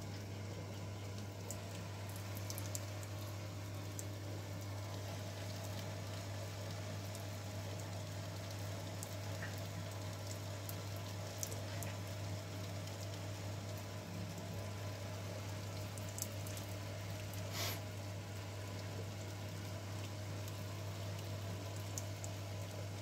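Sparge water from a pump's outlet pipe trickling and splashing onto a spoon diffuser over the grain bed of a mash tun, a steady liquid patter over a constant low electric hum from the pump.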